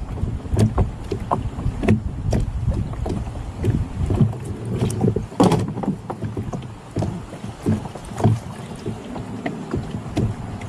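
Irregular knocks and clunks from gear being handled in a small boat on the river, over a low rumble of wind on the microphone.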